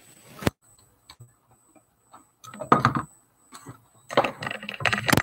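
Handling noise on a workbench: a sharp click about half a second in, then irregular clusters of clattering knocks and taps, and another sharp click near the end.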